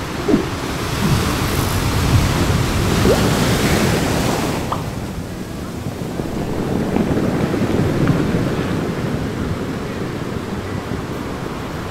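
Ocean surf breaking and washing up a sandy beach, the rush swelling and easing back twice, with wind on the microphone.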